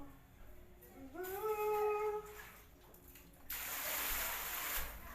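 A person hums a short phrase, and about a second later water splashes for about a second and a half.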